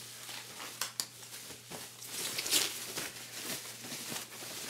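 Thin cheesecloth wrapping rustling and crinkling as it is handled and pulled off a guitar, getting louder about two and a half seconds in, with a small sharp tick about a second in.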